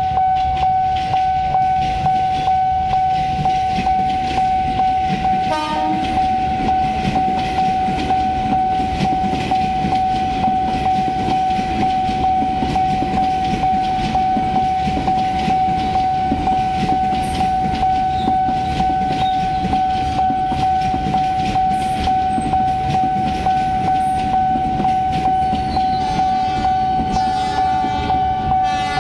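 Railway level-crossing warning alarm sounding one steady high tone while a KRL Commuter Line electric train rolls through the crossing, its wheels rumbling on the rails. Near the end a train horn sounds.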